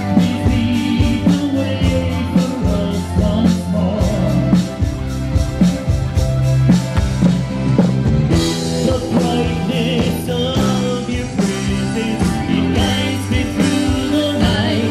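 A live rock band plays through the outdoor PA system: drum kit keeping a steady beat, with bass, guitars and singing voices.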